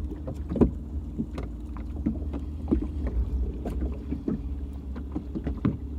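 Boat motor running steadily with a low hum, its propeller chewing through thick matted weeds. Irregular short knocks and clicks sound over it.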